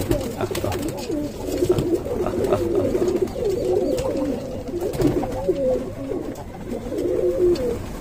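A flock of feral rock pigeons cooing, many calls overlapping without a break, with a few short sharp clicks among them.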